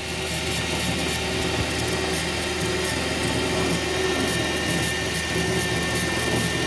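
Metal lathe spindle running at about 1,000 RPM while its carbide tool takes an interrupted facing cut on a long overhanging bar: a steady machine noise with a thin high whine, swelling in level about the first second.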